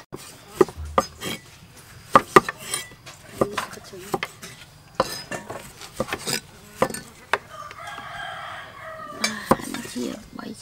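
Cleavers chopping tomatoes on a wooden chopping block: irregular sharp knocks of the blades striking the wood. A rooster crows once, about eight seconds in.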